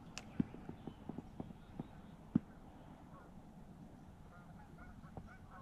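Geese honking faintly, a run of repeated calls that grows clearer near the end. A few light knocks, the loudest about two and a half seconds in, from the kayak paddle against the boat.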